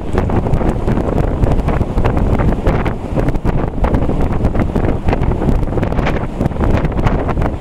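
Wind buffeting the camera microphone on a ferry's open deck: a loud, gusty rumble with constant crackling pops.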